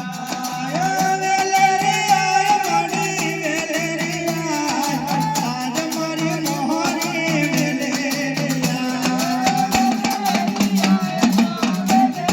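Live Gujarati dakla devotional music: a singing voice holding long, wavering notes over fast, steady drumming.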